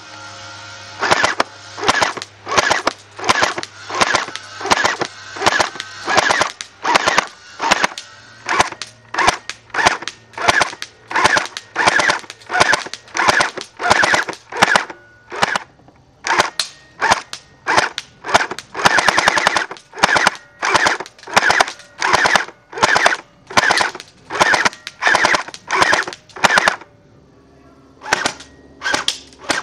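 Boyi Elephant SL8 airsoft electric gun (AEG) firing plastic BBs: a long, steady string of single shots in quick succession, a bit under two a second. There is a short pause near the end.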